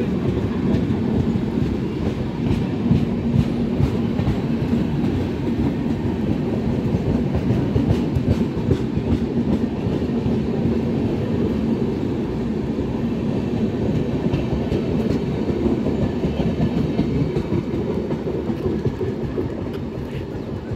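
Express passenger train of LHB coaches running past at close range, with a steady rumble of wheels on the rails. The sound eases slightly near the end as the last coach moves away.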